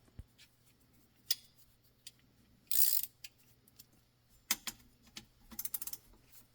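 Hand ratchet clicking in short, quiet runs as the driveshaft and rear differential coupler bolts are worked loose, with scattered clinks of metal tools. A brief scraping rush about three seconds in, and a quicker run of clicks near the end.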